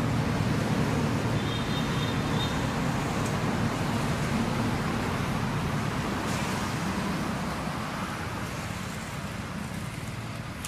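Low, steady rumble of road traffic that slowly fades away, with a brief faint high chirp about two seconds in.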